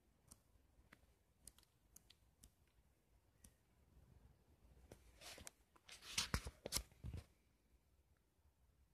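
Paper pages of a paperback book being leafed through: faint small clicks, then a louder burst of page rustling and flicking about five to seven seconds in.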